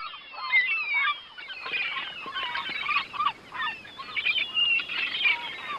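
A flock of birds calling over one another: many short, overlapping squawks and cries, some sliding up or down in pitch.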